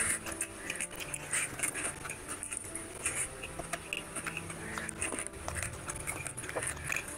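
Close-up wet chewing and lip smacking of a mouthful of rice and mutton curry, mixed with many small irregular clicks from fingers squishing and gathering curry-soaked rice on the plate.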